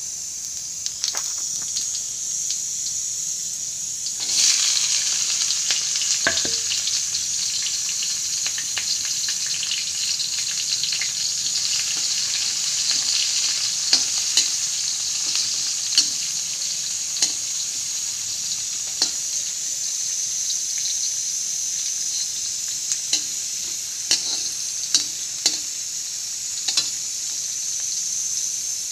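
Sliced onions, green chillies and cumin frying in hot oil in an iron kadai: a steady sizzle that jumps louder about four seconds in, as the onions go into the oil. Sharp clicks from the metal slotted spoon striking the pan as it stirs.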